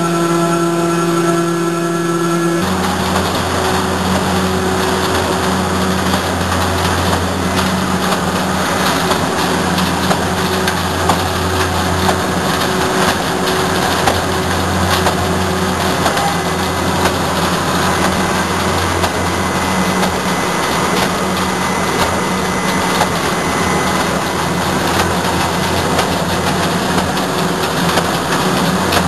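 A corrugated cardboard production line running: loud, steady industrial machine noise with a low hum and scattered light clicks. About two and a half seconds in, a steadier humming tone gives way abruptly to the fuller running noise.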